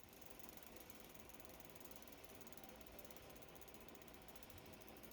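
Faint, steady, very rapid ratchet ticking from a bicycle wheel spun by hand and coasting on its freewheel pawls.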